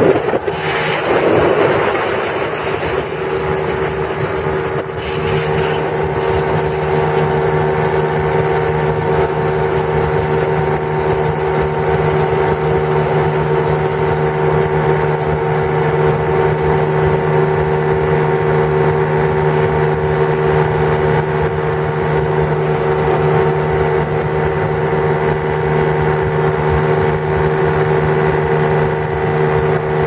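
Ultralight aircraft engine and propeller droning steadily at constant power, with wind rushing over the microphone, strongest in gusts in the first couple of seconds and again around five seconds in.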